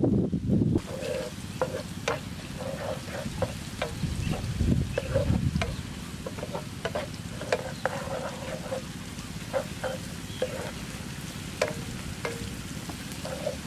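Spatula stirring and scraping in a frying pan of chilli and garlic sizzling in oil: frequent sharp clicks and short scrapes against the pan over a steady sizzle.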